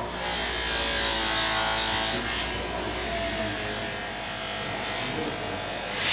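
Bench grinder's buffing wheel running with a brass part pressed against it: a rushing hiss of the buff scrubbing the metal over the motor's hum. The motor's hum drops in pitch during the first few seconds, and there are short louder scuffs at about two, five and six seconds in.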